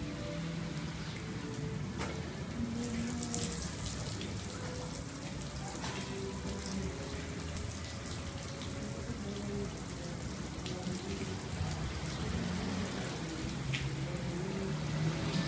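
Water from an AquaGun hose spray nozzle splashing onto a car's roof and body panels and running off, a steady spray.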